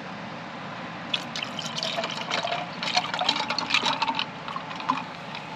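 Liquid poured into a cup, with splashing and gurgling that come in irregular bursts for about four seconds.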